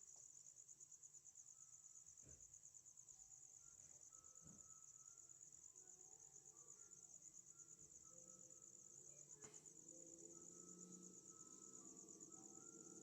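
Crickets chirring: a faint, continuous high-pitched trill made of rapid even pulses.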